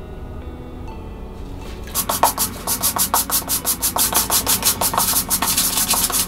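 Stiff plastic hand brush scrubbing a soaked, soapy garment in rapid back-and-forth strokes, about six a second, starting about two seconds in.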